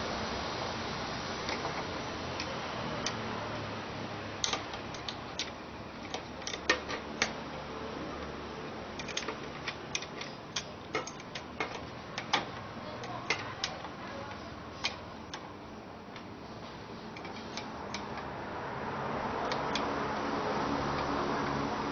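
Irregular sharp clicks and taps of an electric fan's parts being handled as it is taken apart, over a steady background hiss that swells near the end.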